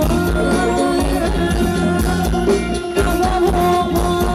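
Live Thai ramwong band music with a steady beat and singing, the voice holding long notes over the band.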